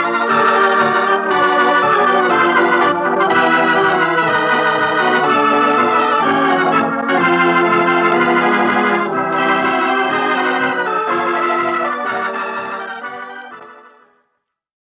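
Organ music playing slow, sustained chords as a radio show's closing theme; it fades out and stops just before the end.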